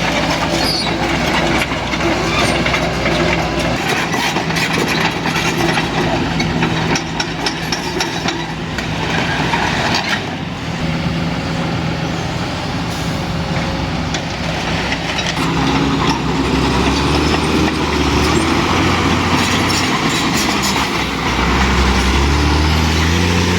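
Kobelco excavator's diesel engine running, its note rising and strengthening about two-thirds of the way in and again near the end as it works under load, with a few knocks around seven to nine seconds in.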